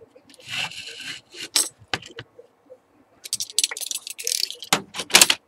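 Handling noise from a Fluke 8020B multimeter's plastic case and tools on a workbench. There is a rustle, then a series of sharp clicks and clattering rattles, ending with two louder knocks.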